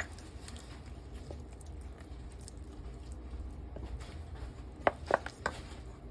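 Chicken wings being dropped into and worked around a bowl of wet batter: a click at the start and a few short wet knocks about five seconds in, over a low steady hum.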